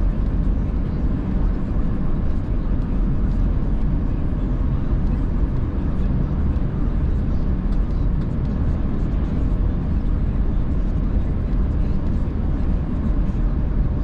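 Steady road and engine noise of a car driving at speed, heard inside the cabin: a low, even rumble with tyre hiss and no distinct events.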